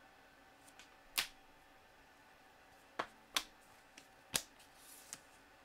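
Trading cards being handled and flipped by hand: a handful of short, sharp card clicks and snaps spaced irregularly, with a brief soft slide of card on card near the end.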